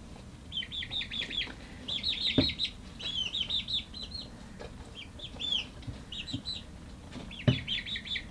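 Young chickens in a brooder peeping: runs of short, high chirps, several a second, in bursts with short pauses between, and a few soft knocks among them.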